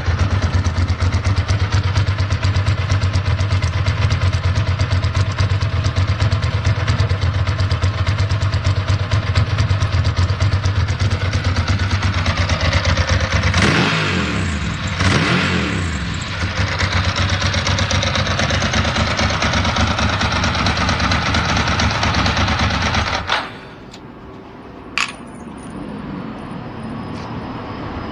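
Ducati Monster S4's L-twin engine idling steadily, revved up and back down twice about halfway through, then switched off near the end. A single sharp click follows a couple of seconds after it stops.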